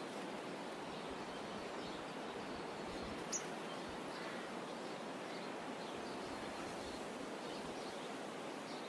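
Meadow ambience: a steady rushing hiss with faint, scattered bird chirps and one brief sharp high chirp a little over three seconds in.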